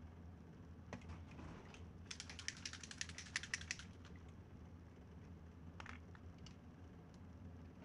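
Small plastic clicks and taps from paint bottles being handled and set down on a workbench: a few around a second in, a quick rattling run from about two to four seconds, then a couple more near the end, over a faint steady low hum.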